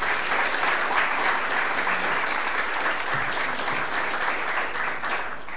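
Audience applauding, a steady round of clapping that fades out near the end, just before speech resumes.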